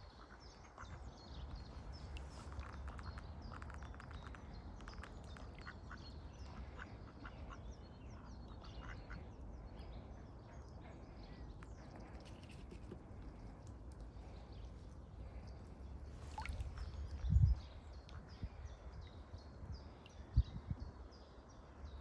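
A swan calling in many short, quack-like notes, more often in the first half, over a steady low rumble. One dull thump comes near the three-quarter mark.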